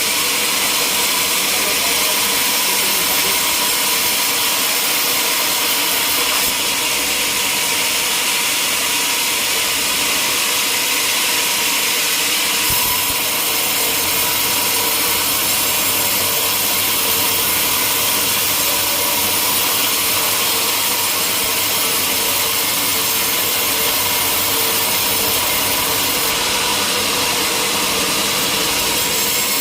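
Sawmill saw running steadily through a log, a continuous, even cutting noise at a constant level with a faint steady hum beneath.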